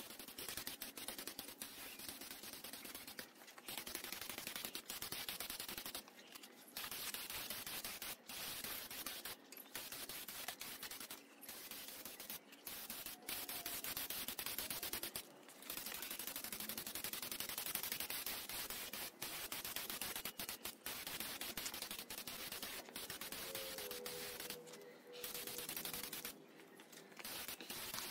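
Gravity-feed air spray gun hissing as it sprays paint, in long bursts broken several times by brief pauses where the trigger is let go.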